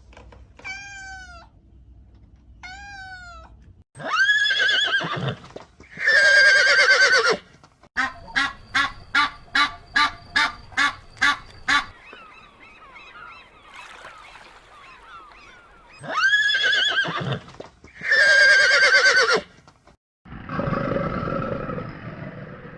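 Farm fowl calling: two short calls, then several long, loud calls, a quick run of about a dozen sharp calls at roughly three a second, and more long calls near the end.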